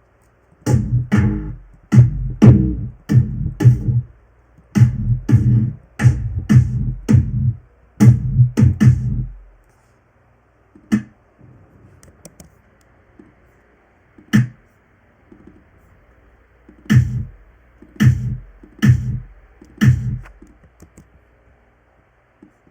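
Programmed electronic drum beat with heavy, bass-laden kick hits, about two a second for the first nine seconds or so, then sparser, scattered hits after a short break.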